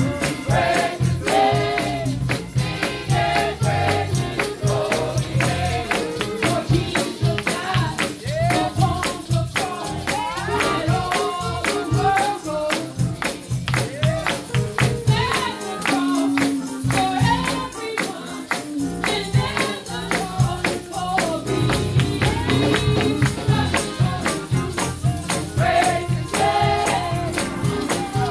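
Live gospel music: women singing together into microphones over a band with a bass line and percussion keeping a quick, steady beat. The bass drops out for a few seconds about halfway through.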